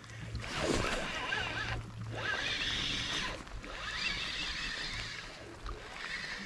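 Spinning reel being cranked, reeling in the line and lure.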